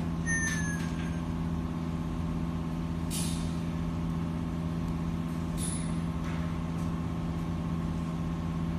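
Snoring sound effect from a novelty animal-shaped wireless charger: a steady low rumble with three breathy, hissing exhales a few seconds apart.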